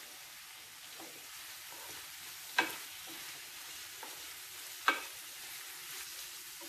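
Sliced onions sizzling in ghee and oil as they are sautéed down to soften, stirred with a wooden spatula in a nonstick pan. Twice, a couple of seconds apart, the spatula knocks sharply against the pan.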